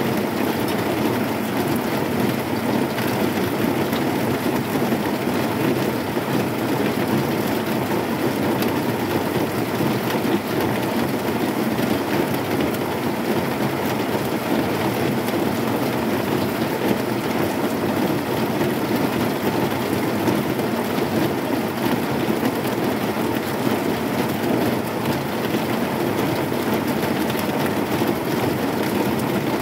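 Heavy rain falling on a corrugated zinc sheet roof: a steady, dense patter that does not let up.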